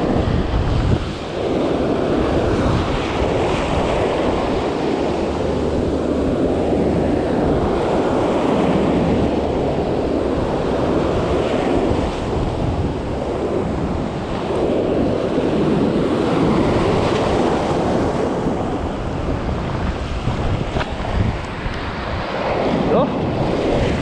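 Surf breaking and washing up the shore in surges that rise and fall every few seconds, with wind buffeting the microphone.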